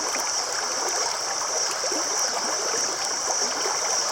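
Shallow river water flowing and trickling over rocks, with a steady high-pitched hiss above it.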